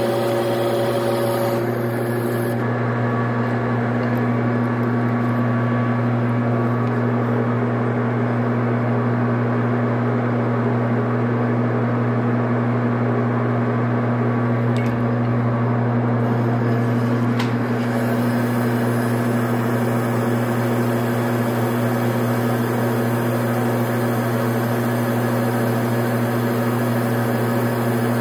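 Metal lathe running steadily, its motor and gearing making a constant hum. A tool-steel bar is being cut at first, with a cutting hiss and ringing tones that stop after about two seconds. A couple of clicks follow, and the cutting sound comes back about two-thirds of the way through.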